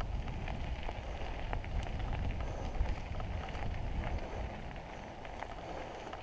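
Mountain bike tyres rolling over a dirt forest trail, with a crackle of small ticks from grit and twigs under the wheels over a low rumble.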